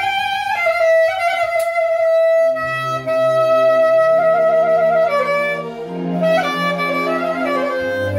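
Clarinet playing a melody: a long held note, then a wavering passage with bent notes, over a backing accompaniment whose bass line comes in about two and a half seconds in.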